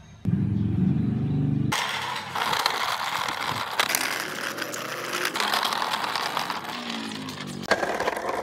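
Car driving sound: a low engine hum for about a second and a half, then a sudden loud rushing noise of the car moving along, with a brief rise in engine pitch near the end.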